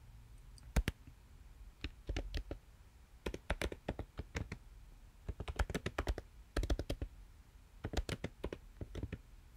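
Computer keyboard typing: quick key clicks in several short bursts with brief pauses between them.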